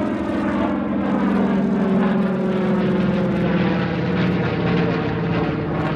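Grumman TBM Avenger's Wright R-2600 Cyclone 14 radial engine and propeller droning in flight overhead, the pitch falling slowly over the first few seconds.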